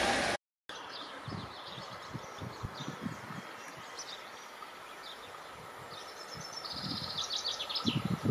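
A passing train's noise cuts off abruptly just after the start, giving way to birds chirping and trilling, with a fast run of high trills toward the end. Under them a Siemens ER20 diesel locomotive hauling a container train approaches, its low rumble growing louder near the end.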